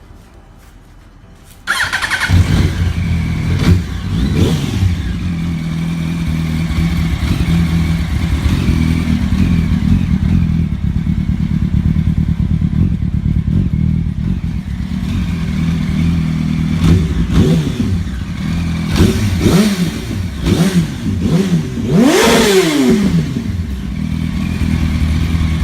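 A rebuilt 2008 Yamaha YZF-R1's 998 cc inline-four catches about two seconds in and settles into a steady idle. Near the end it is blipped several times, with one big rev that rises and falls back. This is the wrecked bike running again after its rebuild.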